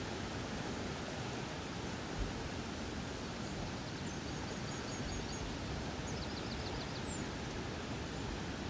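Steady rushing of river water. A bird's faint high chirps come in two short, quick series in the middle.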